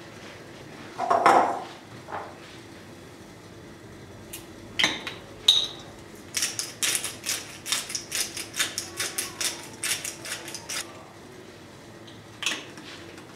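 A container knocks down onto a stone countertop about a second in. About six seconds in, a hand-twisted spice grinder starts grinding over a glass bowl: a quick run of short gritty crunches, about five a second, lasting about four seconds.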